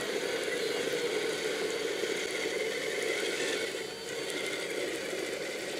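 Electric RC vehicle's motor and gears whirring steadily, with a brief dip about four seconds in.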